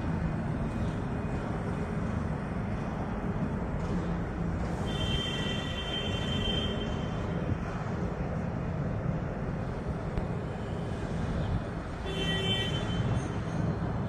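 A tracked rice combine harvester's 102 hp diesel engine running steadily. A brief high-pitched squeal comes in twice over it, about five seconds in and again near the end.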